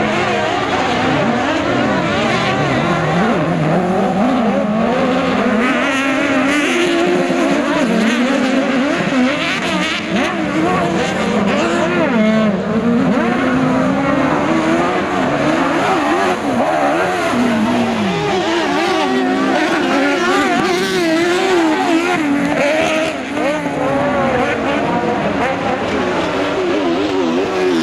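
Several autocross race cars' engines revving up and down as they race, their pitches overlapping and rising and falling throughout.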